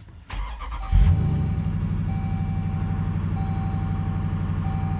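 The Dodge Durango SRT 392's 6.4-litre HEMI V8 being push-button started: the starter cranks briefly, the engine catches about a second in with a loud flare of revs, then settles into a steady, deep idle, heard from inside the cabin.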